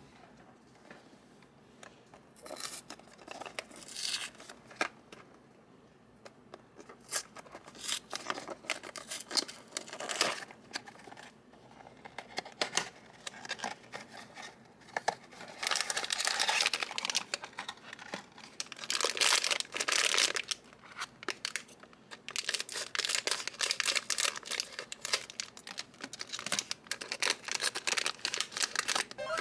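Blind-box packaging being opened by hand: wrapping torn and crinkled in irregular bursts of rustling and small clicks, sparse at first and busier and louder in the second half.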